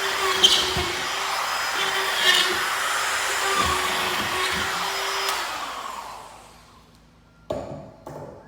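High-speed electric motor of a power tool or shop vacuum running steadily with a few brief scrapes. It winds down and stops a couple of seconds before the end, followed by a few knocks.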